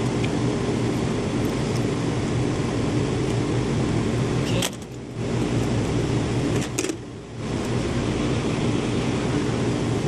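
Air-cooled chiller's condenser fans running with a steady hum. Twice, near the middle, a click is followed by a brief drop in the sound.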